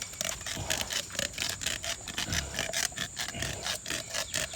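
A boar's tusk being cut through with rapid back-and-forth scraping strokes, about four a second.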